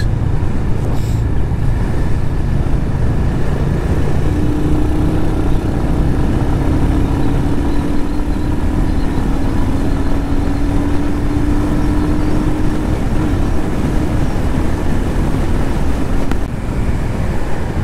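Motorcycle riding at steady highway speed: loud wind rush over the microphone mixed with the engine running, a steady hum in the middle that creeps slightly up in pitch.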